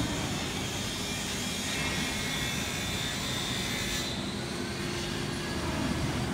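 Welding positioner's tilt drive, an electric gear motor, running steadily as the worktable flips up toward 90 degrees: an even mechanical drone with a thin high whine.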